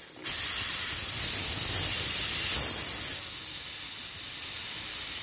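Pressure cooker letting off steam through its valve in a loud hiss as the pressure is released before opening. The hiss starts abruptly just after the start, eases a little about three seconds in, and keeps going steadily.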